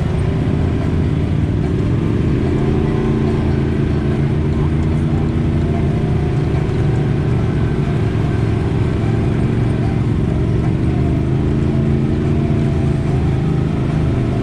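Side-by-side off-road vehicle's engine running steadily, its pitch slowly rising and falling as the throttle changes.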